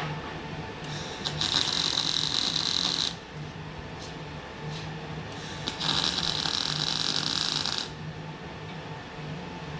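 Welding arc hissing and crackling in two bursts of about two seconds each, with a brief sputter as each one strikes, over a steady low hum.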